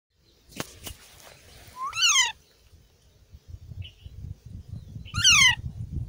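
Alexandrine parakeet chick giving two loud squawks that rise and then fall in pitch, about three seconds apart, with a faint short chirp between them. Two sharp clicks come near the start.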